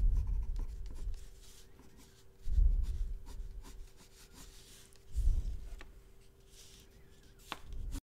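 Black pencil scratching on paper in many short, light strokes, with three soft low thumps about two and a half seconds apart and a sharp click near the end.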